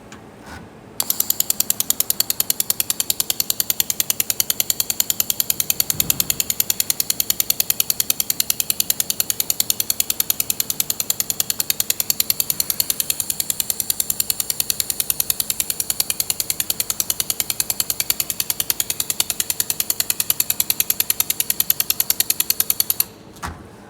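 Laser welding machine firing in rapid, even pulses with a high-pitched whine over them, starting about a second in and cutting off suddenly near the end.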